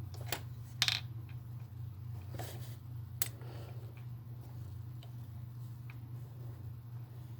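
Small hard parts clicking and tapping while being handled and fitted by hand: a few sharp clicks in the first few seconds, the loudest about a second in, over a steady low hum.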